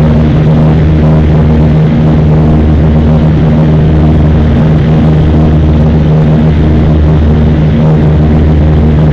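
Turboprop airliner's engine and propeller heard from inside the cabin: a loud, steady drone with a strong low hum that holds even throughout.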